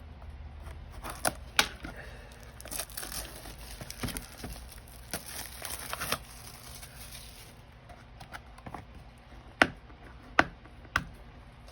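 Plastic shrink wrap being torn and crinkled off a sealed trading-card booster box, with a few sharp clicks and taps as the box is handled. The long tearing rustle falls in the middle, and the separate clicks come near the start and near the end.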